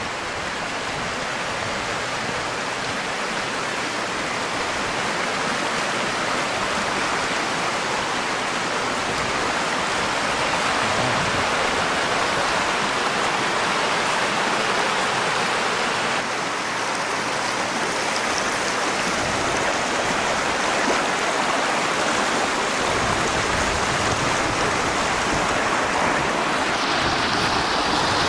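Shallow rocky creek rushing over stones, a steady rush of running water that grows a little louder over the first several seconds.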